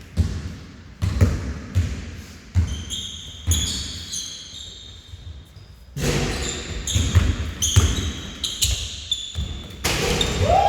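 Basketball dribbled on a gym floor, bouncing about once every second at an even pace and echoing in the hall; about six seconds in the play gets busier and louder, with quick bounces and short high-pitched sneaker squeaks.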